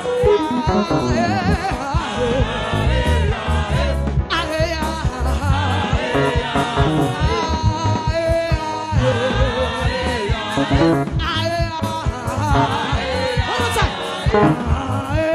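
Live gospel choir music: voices singing over a band with strong bass and drums.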